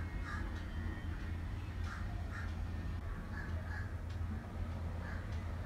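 Short bird calls, mostly in pairs every second or two, over a steady low hum.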